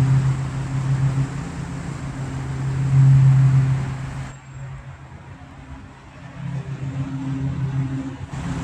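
An engine running steadily with a low hum. It swells about three seconds in, then drops to a quieter, duller sound for a few seconds before coming back.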